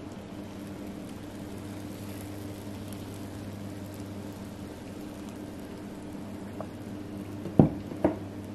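Steady low electrical hum with a faint hiss as batter is poured onto a waffle iron. Near the end come two sharp knocks about half a second apart as the emptied blender cup is handled.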